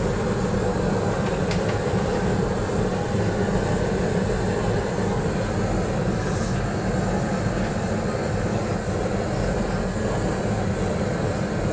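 Gas torch flame burning with a steady low rushing noise while singeing the fur off a dog carcass.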